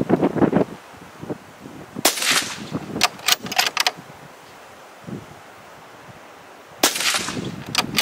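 Bolt-action rifle fired twice, about five seconds apart. After each shot come quick metallic clacks of the bolt being worked.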